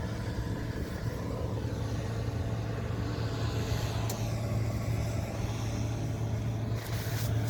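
Combine harvester running steadily with a constant low hum, a brief click about four seconds in and a short rush of noise near the end.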